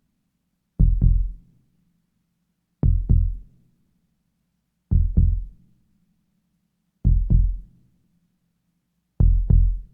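Heartbeat sound effect: slow lub-dub double thumps, five in all, one about every two seconds, with the gap between them growing slightly. It is a heartbeat slowing down, and a faint low hum runs between the beats.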